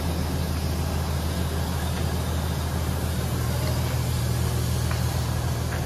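Steam locomotive D14 10 standing at the platform under steam: a steady low hum over a constant hiss.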